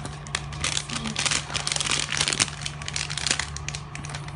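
Squishy-toy packaging crinkling and rustling as it is handled, in a rapid run of irregular crackles that thins out near the end.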